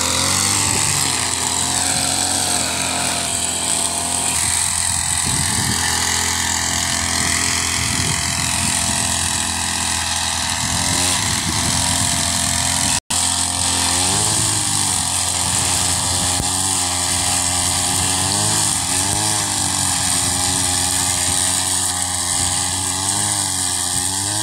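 Wheeled trolley brushcutter's 52 cc two-stroke engine running at high speed while its cutter clears dry grass. The pitch wavers up and down repeatedly in the second half, and the sound breaks off for an instant about halfway.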